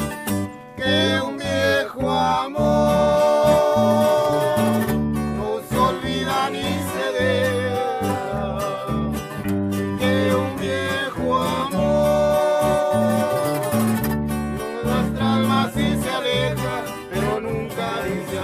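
Two acoustic guitars, one of them a twelve-string, played together in a strummed and picked song, with a man singing over them.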